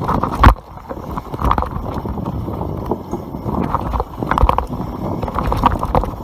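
YT Capra enduro mountain bike ridden fast down a dirt forest trail: steady tyre rumble with the bike rattling and knocking over bumps, the hardest knock about half a second in.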